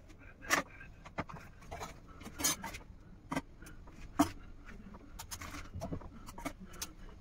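Handling of kitchen items during sandwich assembly: scattered knocks, taps and rubbing or scraping. The sharpest knocks come about half a second, two and a half and four seconds in.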